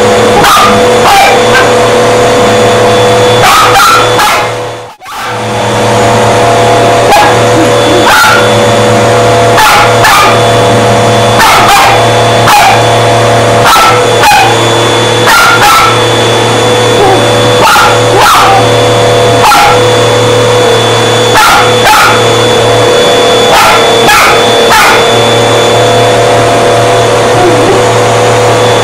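A small dog barking and yipping over and over at a vacuum cleaner hose, with the vacuum's motor running under it as a loud steady hum. The hum and the barking drop out briefly about five seconds in.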